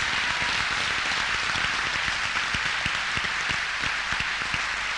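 Audience applauding: dense, steady clapping from a large crowd in approval of a remark.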